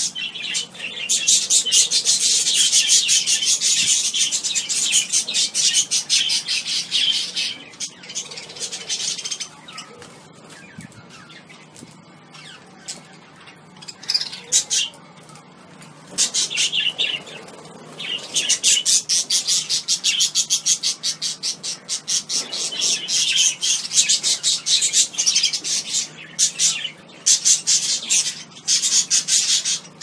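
A flock of budgerigars chattering, a dense stream of rapid, high chirps from many birds at once. The chatter dies down for several seconds in the middle, then picks up again.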